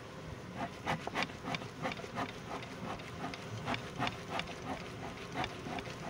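Honey bees buzzing around an opened hive box, with a regular run of short scrapes, about three a second.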